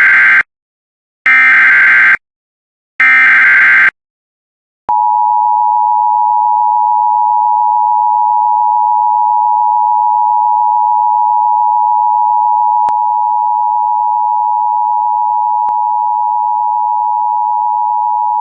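Emergency Alert System SAME header: the end of one data burst and two more buzzing digital bursts of about a second each, then after a second's pause the steady two-tone EAS attention signal, held for about 13 seconds. These tones announce a flash flood warning.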